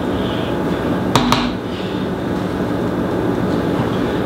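A steady droning hum, with two sharp clicks a little over a second in.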